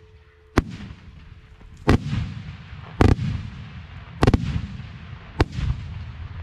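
Aerial fireworks shells firing and bursting: six sharp, loud bangs about a second apart, two of them in quick succession about two-thirds of the way in, each followed by a rolling echo.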